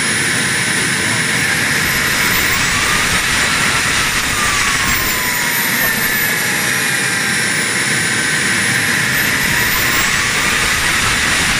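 Wren 100 model turbojet running: a steady, loud rush of jet noise with high whining tones that slowly rise and fall.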